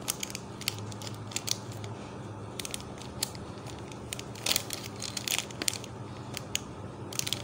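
A plastic spice packet of ground black pepper crinkling and crackling as it is shaken and tapped over a bowl of yogurt. It makes irregular crisp clicks, clustering more thickly about four and a half and five and a half seconds in and again near the end.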